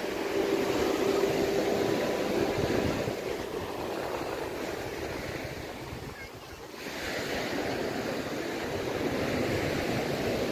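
Sea waves washing onto a sandy beach. The surf dies down about six seconds in, then swells again as the next wave comes in.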